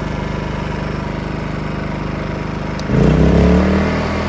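Wen 56235i inverter generator's four-stroke engine running steadily at low speed in eco mode with no load. About three seconds in, it suddenly ramps up to a louder, higher-pitched run as eco mode is switched off.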